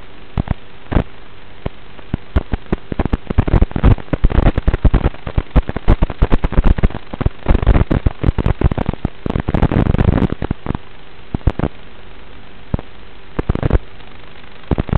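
Dense crackling and popping over a steady hiss on a Beerotor 130 FPV quadcopter's flight recording, thickest from about two seconds in to ten seconds, then thinning to scattered pops.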